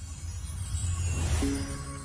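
Logo intro music: a swelling whoosh over a low rumble that builds in loudness, with a few held notes coming in about a second and a half in.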